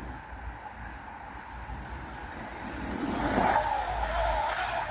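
Small RC truck's brushless electric motor whining as it drives over rough ground, swelling louder about three seconds in, over a steady low wind rumble on the microphone.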